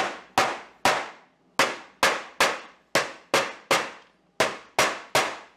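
Hammer driving 1/4"-20 steel T-nuts into drilled holes in a plywood disc: about a dozen sharp strikes, a little more than two a second, each ringing briefly, in short runs with two brief pauses.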